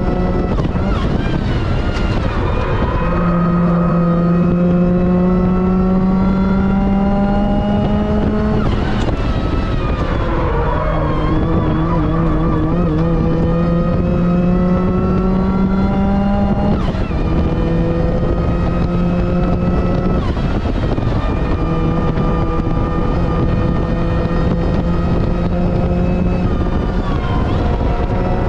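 Supercharged Mazda MX-5 NB four-cylinder engine heard from the cockpit under hard load, its pitch climbing slowly as speed builds. The pitch dips briefly three times, where the driver lifts or shifts, then holds nearly steady near the end.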